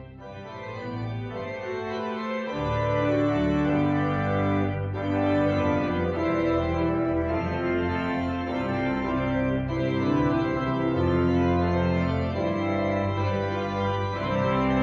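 Organ music: held chords that begin softly and fill out with low bass notes about two and a half seconds in, then play on steadily.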